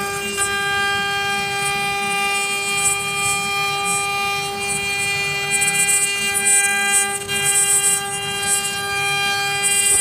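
HG-1325 wood CNC router's spindle whining at a steady pitch as its end mill carves a wooden cylinder turning on the rotary axis, with bursts of cutting noise coming and going, loudest in the middle and near the end.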